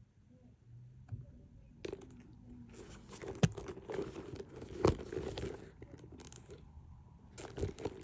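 Crinkling, rustling handling noise from a handbag and its wrapping being turned over by hand, starting about two seconds in, with a few sharp clicks and knocks.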